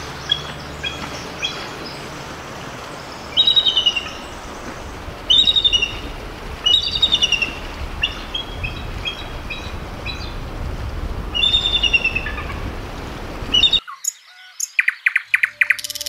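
Bald eagle calling: high, thin chirps and short stuttering chatter series, repeated several times, over a steady background hiss. Near the end it cuts abruptly to a different bird's rapid, pulsing song.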